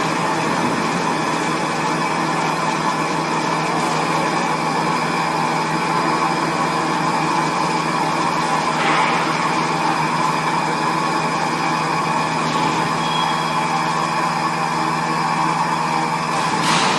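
XH7145/VMC650 CNC vertical machining center running steadily, with many steady tones. There is a short burst of hiss about nine seconds in and another near the end.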